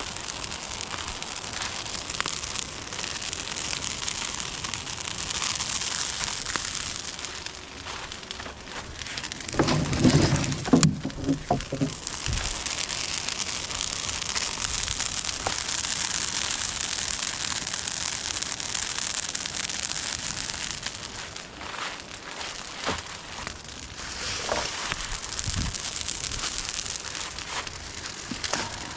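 Steady hiss of rain falling, with a cluster of louder knocks and rustles about ten seconds in.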